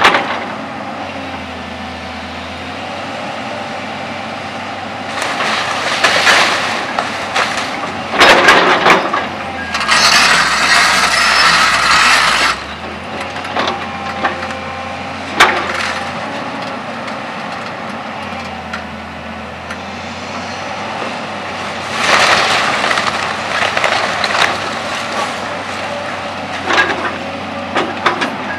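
Volvo crawler excavator's diesel engine running steadily while its bucket crunches through the wooden roof and walls of an old barrack building: repeated bursts of cracking, splintering timber and falling debris, the longest about a third of the way in.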